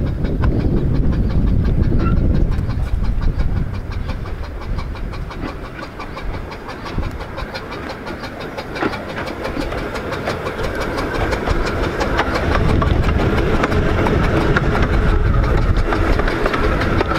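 15-inch gauge steam locomotive No. 8 'John of Gaunt' hauling its coaches past, its wheels clattering over the rails. It grows louder from about halfway through and is loudest as it runs close by near the end.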